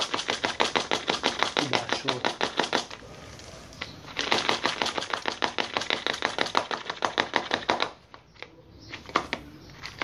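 Dry bird-feed mix of pellets, chopped peanuts and corn rattling inside a plastic PET bottle as it is shaken hard and fast, about seven shakes a second. Two runs of shaking with a pause of about a second between them, then only a few loose rattles near the end.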